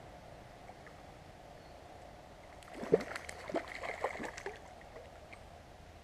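A hooked chub splashing at the water's surface as it is brought in: a burst of splashes starting about three seconds in and lasting under two seconds, over the faint steady sound of a stream.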